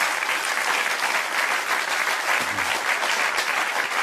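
Studio audience applauding steadily after a punchline, dense clapping with no break.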